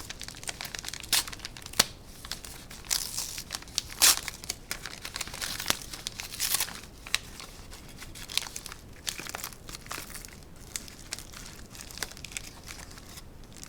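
Coin-order packaging being handled and torn open by hand: irregular crinkling and tearing with sharp crackles, busiest in the first half and thinning out later.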